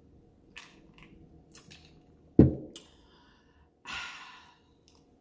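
Close-miked eating sounds: small clicks and crunches of chewing a BLT sandwich, a loud low thump a little before halfway, and a short breathy exhale about four seconds in.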